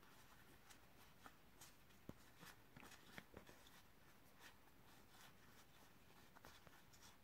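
Near silence, with faint soft ticks of SEGA Dinosaur King cards being thumbed through one by one.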